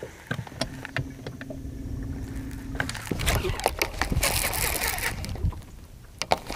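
Rod and fishing reel as a lure is cast and cranked back in: scattered clicks and a steady low hum for about two seconds, then a louder rustling hiss with clicks through the second half.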